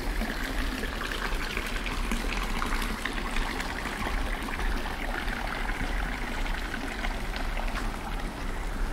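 Water running and trickling steadily, with a dense patter of small drips and splashes.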